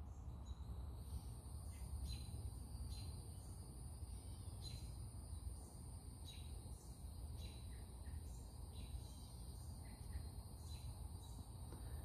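Evening insect chorus: a steady high-pitched insect buzz runs on without a break, with a short sharp call repeating about once a second, over a low rumble of background noise.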